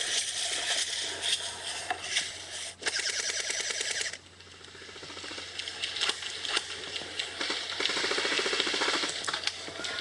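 Airsoft guns firing full-auto, rapid rattling bursts, played back through a tablet's speaker. The bursts come in two long stretches, with a lull about four seconds in.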